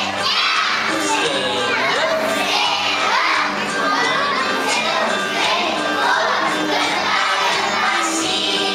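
A group of young children shouting and cheering all at once, many voices overlapping without a pause.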